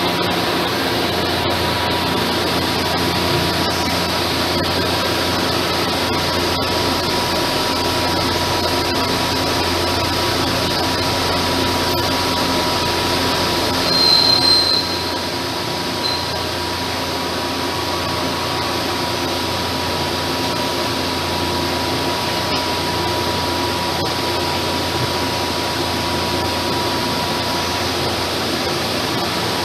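2013 Hwacheon T2-2T-YSMC twin-spindle CNC lathe running behind its closed doors: a steady mechanical hum with a constant whine. A brief high squeal comes about halfway through.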